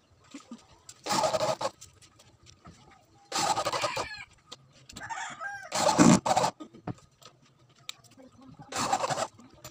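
Corded electric drill driving wood screws into a speaker box's wooden cover: four short bursts of the drill, each well under a second, with pauses between them.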